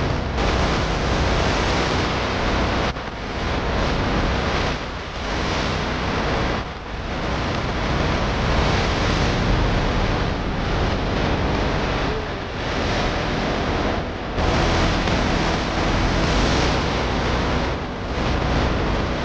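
Steady rushing noise heard from inside a moving car on a rain-soaked road: tyres running through standing water, with rain and wind against the car. It swells and dips every few seconds.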